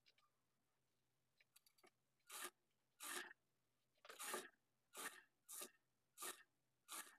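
Faint rasping rubs of cloth being handled and smoothed, starting about two seconds in and repeating roughly once a second.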